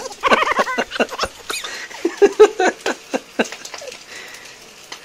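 A person laughing, with high squealing peals that rise and fall, most of it in the first second and again about two to three seconds in, mixed with scattered sharp pops.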